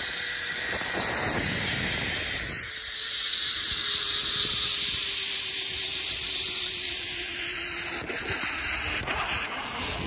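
Zipline trolley pulley running along a steel cable: a steady rushing hiss, with a faint whine that slowly falls in pitch and fades out about eight seconds in. Wind is rushing over the microphone.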